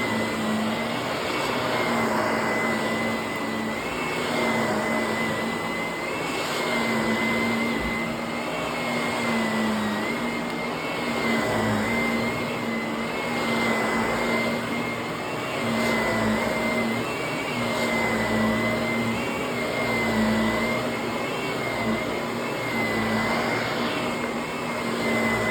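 Upright vacuum cleaner running on carpet: a steady motor whine and rushing air, with the pitch and loudness rising and falling slightly as it is pushed back and forth.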